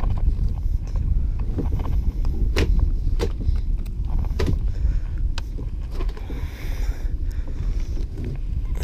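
Wind rumbling on the microphone, with scattered light clicks and knocks and a short rustle as a landed largemouth bass and lake weed are handled and unhooked in a plastic kayak.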